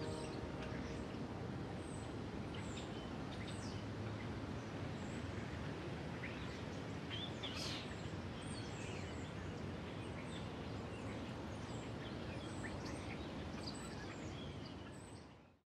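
Outdoor ambience: a steady background hiss and rumble with small birds chirping now and then, fading out near the end. The last held notes of music die away in the first second.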